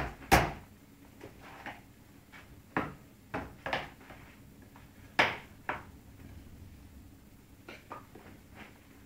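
Baby banging a plastic bowl and hands on a plastic high-chair tray: about a dozen irregular knocks and clacks, the loudest near the start and about five seconds in.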